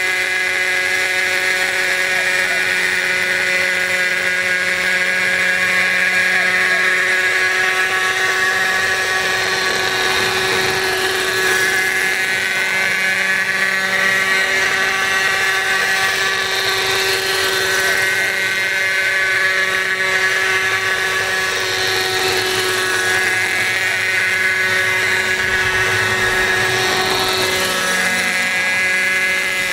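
Large radio-controlled hybrid helicopter in flight, its O.S. 50 Hyper two-stroke glow engine giving a steady high buzz along with the rotor whir. The pitch swells and dips several times as the helicopter moves about.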